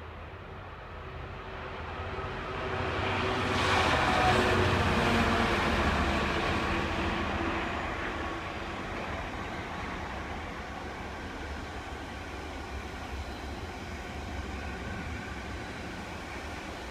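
A Class 66 diesel locomotive with a two-stroke EMD V12 engine approaches and passes at the head of a container freight train, loudest about four seconds in. It is followed by the steady rumble of container wagons rolling by.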